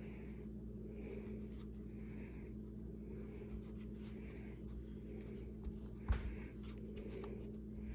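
Sight pusher being cranked to drive the Glock 48's factory rear sight out of its dovetail: short scraping, creaking sounds about one or two a second, with a sharp knock about six seconds in.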